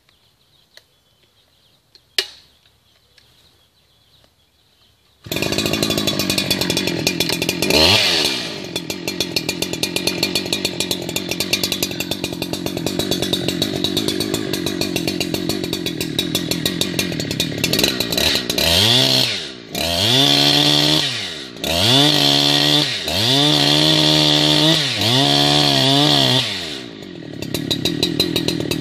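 Husqvarna 365 Special two-stroke chainsaw running at high throttle, cutting the bottom of a felling wedge into a blue gum trunk. About five seconds in it cuts in abruptly after a quiet start broken by a single click, and it revs once about three seconds later. Later its pitch dips and recovers four times as the chain bogs in the wood, then drops briefly before picking up again.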